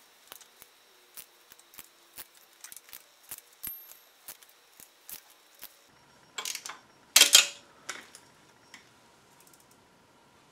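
Hand wrench working the bolts of an aluminium water pump housing: light, irregular metal clicks a few times a second for about six seconds, then two short, louder metallic clatters about six and seven seconds in.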